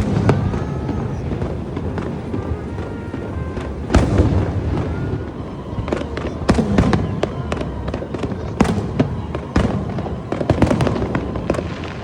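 Aerial fireworks bursting: repeated sharp bangs and crackles over a continuous low rumble, with the loudest bangs about four, six and a half, and nine seconds in.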